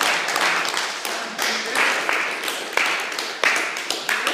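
Irregular sharp slaps and claps among a group's shouts and cheers.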